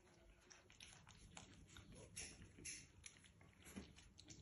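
Puppies eating dry food from a bowl: faint, irregular crunching and clicking, several small clicks a second.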